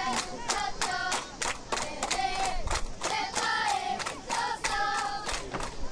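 Football spectators chanting in unison with high voices, over steady rhythmic clapping at about three claps a second.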